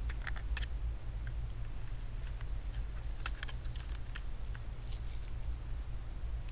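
Scattered faint clicks and taps as a thin metal drive bracket and a 2.5-inch SSD are handled, over a steady low hum.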